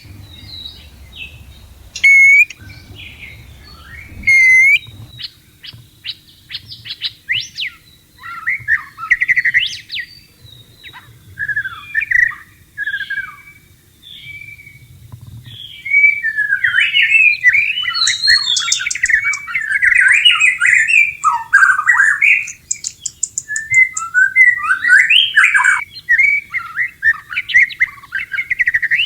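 White-rumped shama (murai batu) in breeding condition, singing. It gives a couple of loud short calls in the first few seconds, then varied whistled and chattering phrases that turn into a rapid, continuous song about halfway through.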